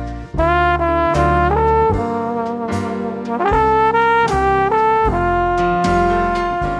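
Outro music: a brass-led melody in short stepping phrases over drum hits, beginning to fade out near the end.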